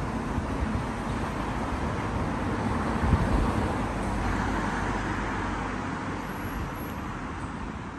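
City street traffic noise: a steady rush of passing cars that swells about halfway through.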